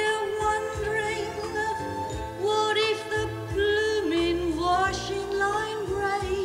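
A woman singing a show tune, her held notes wavering with vibrato, over instrumental accompaniment with a steady bass line.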